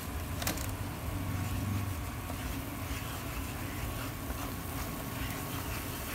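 Wooden spoon stirring a bubbling butter-and-flour gravy base in a nonstick pan, with faint scraping and sizzling from about three seconds in, over a steady low hum.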